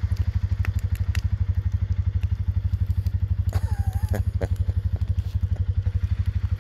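A steady, rapid, low throbbing like a running engine, with a few sharp pops from burning firewood in the first second or so and a short wavering high tone a little past halfway.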